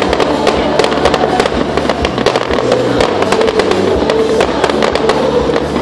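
Aerial fireworks bursting overhead in a rapid, irregular string of crackles and bangs, with music playing under them.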